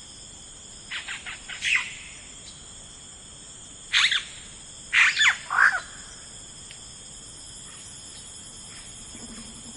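Wild birds calling in short groups of quick, downward-sweeping chirps: about a second in, near four seconds, and a run of three at about five seconds. Underneath is a steady, high insect drone, typical of crickets.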